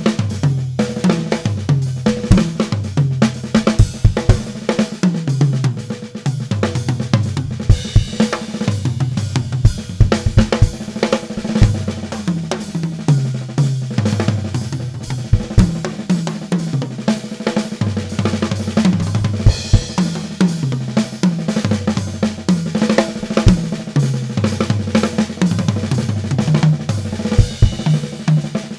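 Drum kit solo: fast runs around toms tuned to distinct pitches, so the fills step up and down like a melody, over bass drum and snare. Cymbal crashes ring out about a third of the way in and again past the middle.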